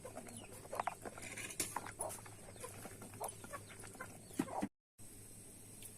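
Chickens clucking in short, scattered calls mixed with small clicks. The sound cuts off abruptly near the end and comes back much quieter.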